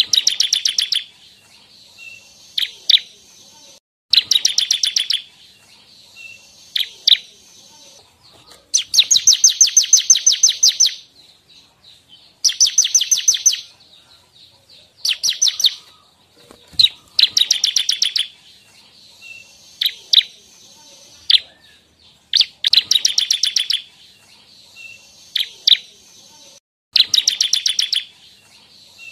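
Bar-winged prinia (ciblek) singing: repeated bouts of rapid, high chattering trills, each a fast run of evenly spaced notes lasting from under a second to about two seconds, with short sharp single notes in the gaps between bouts.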